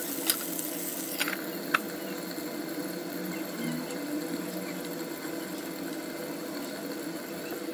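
Steady hum of an induction cooktop and the sizzle of a burger patty frying in a cast iron skillet. A few sharp clinks in the first two seconds come from a glass lid being set on the pan.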